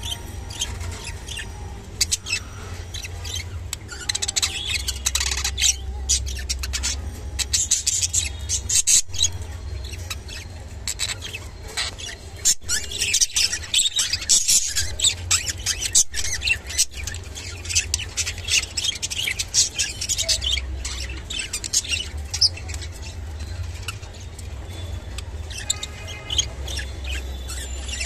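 A pair of budgerigars chattering and warbling during courtship, a fast stream of chirps, squawks and sharp clicks that comes in busy spells.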